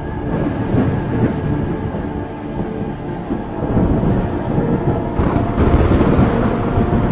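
A deep, rolling thunder-like rumble, a sound effect for a film's opening titles. It swells about four seconds in and again near the end, with a few faint held music tones underneath.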